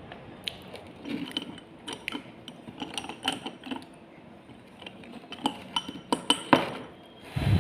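Close-miked crunching and chewing of slate pencil: a string of sharp, crackling snaps, the loudest about six seconds in, then a louder, deeper crunch near the end.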